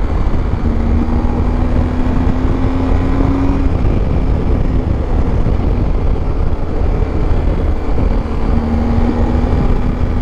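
Wind rushing over the microphone with the BMW R1250 GS Adventure's boxer-twin engine running steadily underneath, cruising at about 90 km/h. A steady hum rises above the noise for a few seconds near the start and again near the end.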